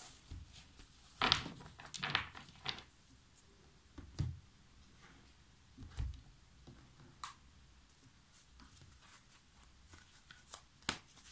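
Tarot cards being handled on a table: scattered soft taps, slides and rustles a second or more apart, with a short cluster of card noises near the end as a deck is picked up.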